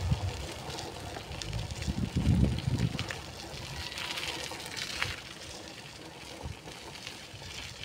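Wind buffeting the microphone of a moving phone in uneven low gusts, strongest a couple of seconds in, over faint street ambience with a few light ticks.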